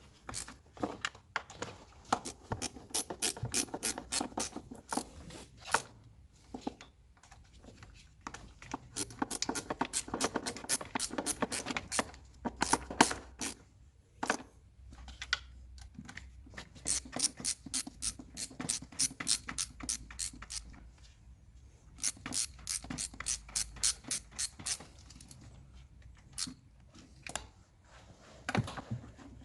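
Hand ratchet wrench clicking in repeated quick runs, about five clicks a second, with short pauses between runs, as nuts and bolts on the intake manifold are turned.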